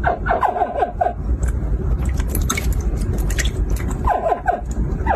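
Hatchling crocodiles chirping: two short clusters of quick yelps falling in pitch, one near the start and one about four seconds in. These are the distress calls baby crocodiles give when handled. Scattered sharp clicks in between, over a steady low rumble.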